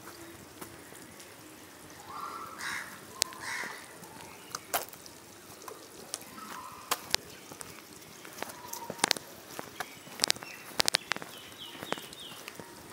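Irregular footsteps and scuffs of a person and a German Shepherd puppy walking on a paved lane, with a few bird chirps in the background, including a quick run of four short notes near the end.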